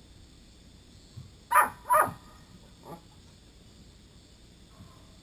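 A herding dog barking: two loud, short barks in quick succession, then a fainter one about a second later.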